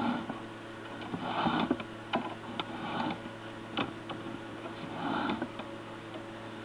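Steady electrical hum from sewer-camera gear, with a soft rushing scrape about every one and a half to two seconds and a few sharp clicks, as the camera's push rod is fed along a cast-iron sewer line.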